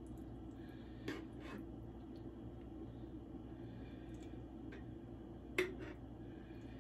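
Spatula scraping home-canned apple pie filling out of a glass canning jar, with two faint sharp clicks, about a second in and near the end, over a low steady hum.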